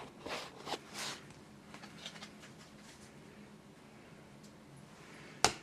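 Faint handling of Pokémon trading cards: a few soft slides and taps in the first second, then a single sharp tap near the end.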